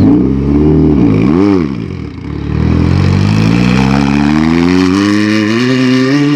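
Off-road race buggy engine revving: a quick rise and fall in pitch about a second in, a dip near two seconds, then a long steady climb in pitch as it accelerates hard.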